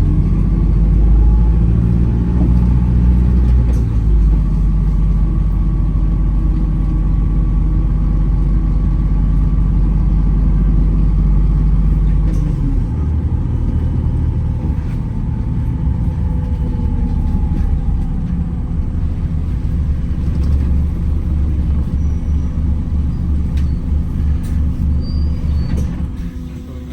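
Wright Gemini 2 hybrid double-decker bus driving, heard from on board. The drivetrain gives a steady low rumble with faint whining tones above it. The rumble changes character about halfway through and quietens near the end.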